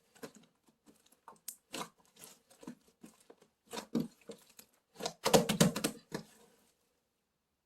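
Irregular light clicks and scrabbling taps, close up, with a louder cluster of scratchy rustling about five seconds in.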